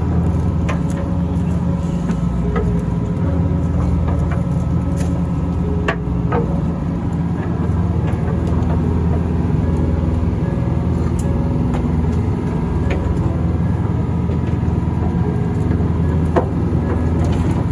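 A fishing boat's engine running steadily with a low drone, with a few light clicks and knocks on deck.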